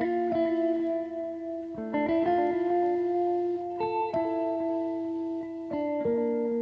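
Background music: sustained chords that change every second or two.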